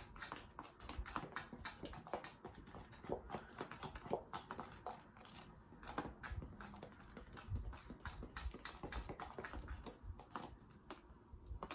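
A utensil stirring seasoned flour in a plastic container, with irregular light clicks and taps against its sides, several a second.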